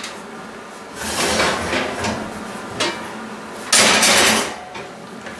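Metal scraping and rattling as an oven's wire rack is pulled out and a heavy enameled cast-iron Dutch oven is dragged across it and lifted out. There are two rough scrapes, the second louder, about four seconds in.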